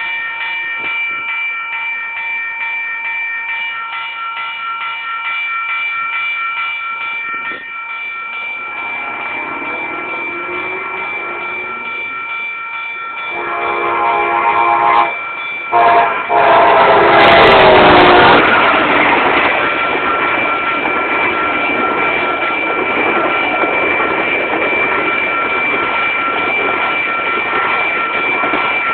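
Railroad crossing bells ringing steadily while a train approaches and sounds its multi-note horn in several blasts. The last blast is the loudest, held long and dropping in pitch as the locomotive passes. Then comes the steady rumble of the train's cars rolling through the crossing, with the bells still ringing.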